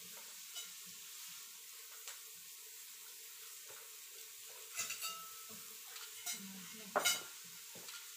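Meat sizzling steadily on a tabletop grill plate, with scattered clicks of forks and chopsticks against the plate and dishes; the loudest clink comes about seven seconds in.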